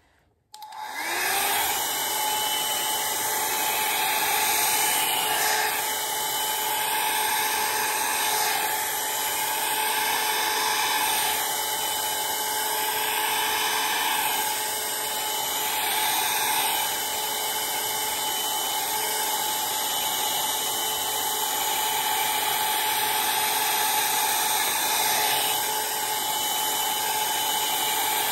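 Hand-held hair dryer switched on about half a second in, then running steadily: an even rush of blown air over a steady motor whine.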